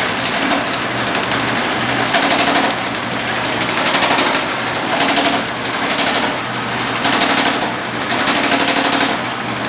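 Homemade differential-driven power hammer running, its upper die striking a sheet metal panel in a rapid, continuous stream of hits. The hits grow louder and ease off every second or two as the panel is worked between the dies.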